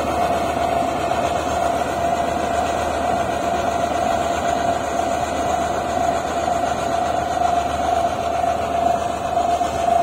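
HIND rice combine harvester running steadily as it cuts the crop: a constant machine drone with a steady whine on top.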